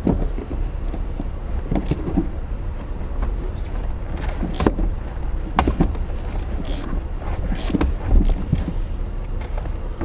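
Irregular metallic clicks and knocks from a hand tool and Torx 50 bit being worked on a tight, rusted seat mounting bolt, over a steady low hum.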